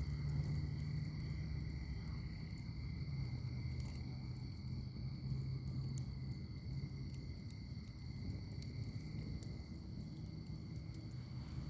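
Wood fire burning in a fire pit: a low steady rumble of flames with scattered small crackles and pops. A steady high insect trill runs underneath.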